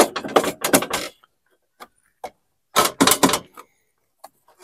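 Clattering and scraping of a loose cover plate being worked out from above the hood latch at the front of a Camaro's engine bay: two bursts of quick knocks and rattles, the second about two and a half seconds after the first.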